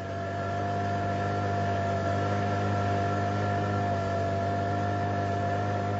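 A motor running steadily: a deep hum with a thin whine held above it and a light hiss.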